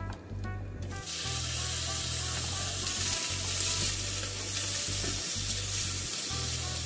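Strips of daikon radish peel sizzling in hot oil in a frying pan. The sizzle starts suddenly about a second in, as the strips hit the pan, and then keeps going.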